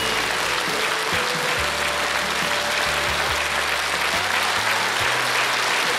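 Studio audience applauding steadily, with music playing underneath: a low bass line shifting notes every second or so.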